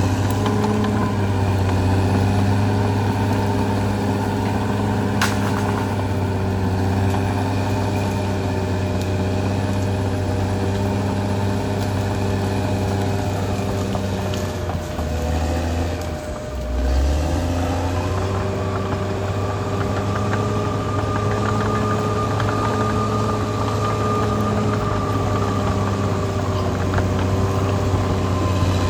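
Caterpillar D6R XL bulldozer's diesel engine running steadily. Its pitch sags and dips for a moment about two-thirds of the way through, then picks up again, and a higher whine joins soon after.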